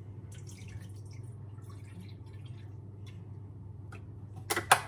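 Milk pouring from a carton into a stainless steel pot, a soft trickle over a low steady hum, followed near the end by two sharp knocks close together.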